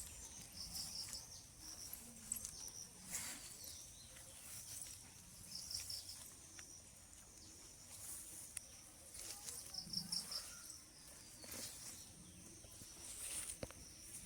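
Songbirds chirping in garden ambience: short, quick series of high notes that come back every few seconds, over a faint steady high hiss.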